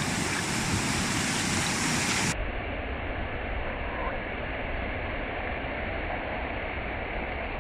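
Steady rush of ocean surf. About two seconds in it turns abruptly duller and muffled.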